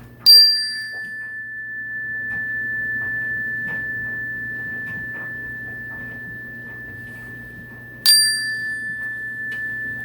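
Zenergy chime, a single metal bar on a wooden resonator, struck twice, about eight seconds apart; each strike starts a long, pure ringing tone that sustains and slowly fades, with bright high overtones that die away within a second.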